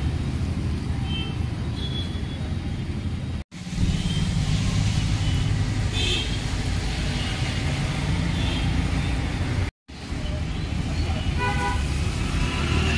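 Street traffic: a steady low rumble of passing vehicles with a few short horn toots, the clearest one near the end.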